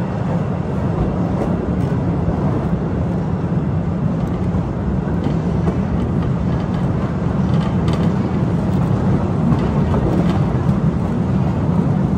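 Narrow-gauge cave railway train running steadily along its track, a continuous low rumble with a few faint clicks now and then.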